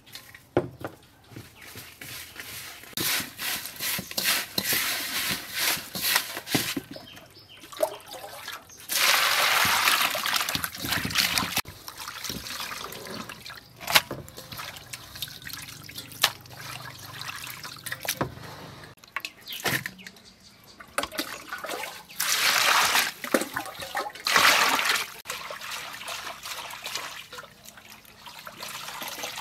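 Small river fish being washed and rubbed with salt by hand in water in a stainless steel bowl: sloshing and splashing in bursts, with an occasional sharp knock against the bowl.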